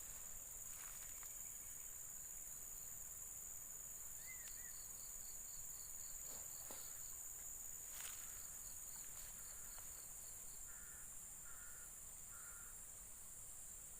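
Faint outdoor ambience of an insect chorus: a steady high-pitched drone, with a run of quick cricket-like chirps, about four a second, through the middle. A few short separate calls sound near the end.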